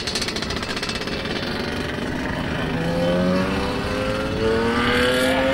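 Motorcycle engines running, with one rising steadily in pitch from about halfway through as it accelerates.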